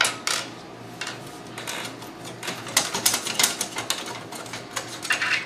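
Thumb screws on the top cover of a Popcorn Hour media player being turned out by hand: a run of light, irregular clicks and ticks, some in quick clusters.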